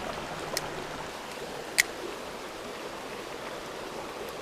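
Small creek flowing in a steady rush of water. Two sharp clicks cut through it, a small one about half a second in and a louder one a little under two seconds in.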